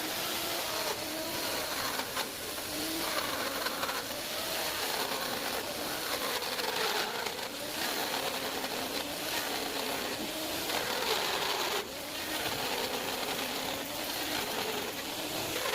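Electric power tool running and cutting wood, a steady rush of noise with a motor tone that wavers up and down in pitch as the load changes.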